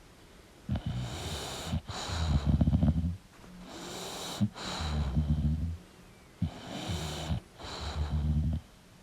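English bulldog snoring in its sleep: three snoring breaths about three seconds apart, each in two parts.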